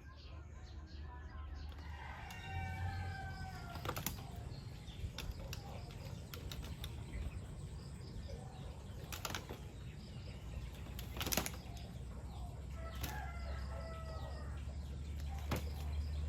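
Birds calling in two short bouts, over a steady low rumble, with a few sharp knocks spread through.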